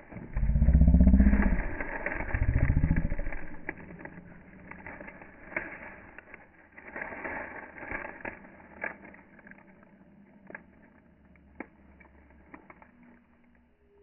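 Deep animal bellowing in two long, rhythmic pulses that rise and fall in pitch over the first four seconds. After that it gives way to quieter scattered clicks and ticks.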